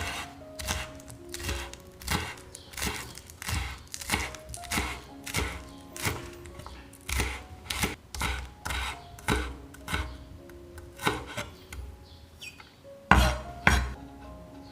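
Knife chopping food on a cutting board in a steady rhythm of sharp strokes, a little over one a second, with two harder strikes near the end. Background music plays underneath.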